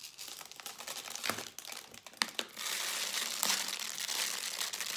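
Dry rice pouring into a plastic bottle: a dense rattling hiss of many small grain ticks that grows heavier and steadier about two and a half seconds in.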